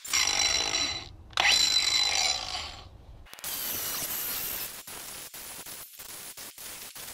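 Power tools working an epoxy-and-wood handle blank in short edited snippets. First a bandsaw runs with a loud steady whine, with a brief break about a second in. After a sudden cut, an angle grinder with a flap disc grinds the handle more quietly, chopped by frequent breaks.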